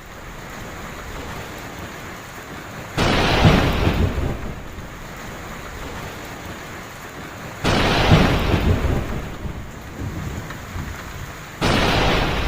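Steady heavy rain, broken three times by sudden cracks of thunder, about three, eight and twelve seconds in, each rumbling off over a second or so.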